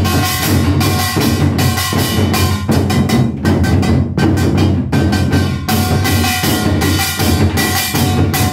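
Modumbuk, a set of Korean barrel drums, beaten in a fast, continuous nanta rhythm with dense strikes and deep drum tones, over accompanying music with held notes.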